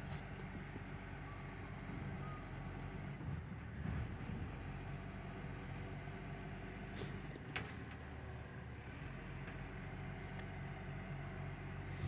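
Recycling truck's engine running steadily down the street, a low drone with a couple of faint knocks.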